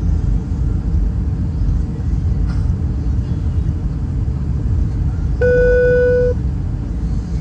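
Airbus A320 cabin noise on approach: a steady low rumble of engines and airflow. Near the end a single steady beep sounds for about a second.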